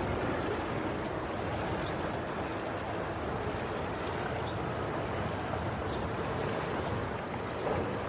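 Steady rushing outdoor noise, of the kind wind and lapping water make, with faint short high chirps every half second to a second.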